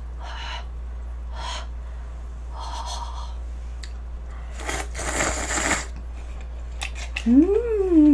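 Close-miked eating noises, loudest in a noisy burst about five seconds in. Near the end comes a hummed 'mmm' of enjoyment that rises and then falls in pitch.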